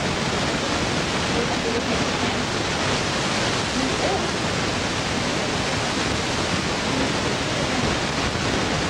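Steady loud hiss with faint, indistinct voices beneath it.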